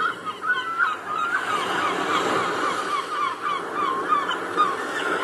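A flock of birds calling, many short calls overlapping several times a second over a steady background noise.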